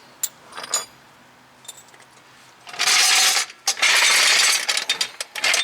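Floor jack being rolled and pumped into place under the suspension: metal rattling and ratcheting in two loud bursts about three and four seconds in, with a shorter one near the end and a few light clinks at the start.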